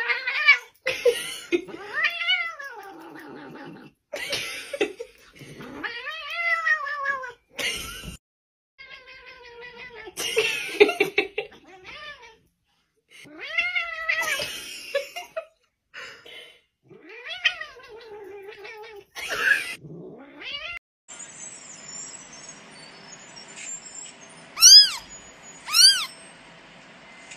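A long-haired tabby cat yowls over and over, each call about a second long, rising then falling in pitch, with short gaps between. Near the end this gives way to a steady low hiss, and a grey kitten meows twice, short and high-pitched.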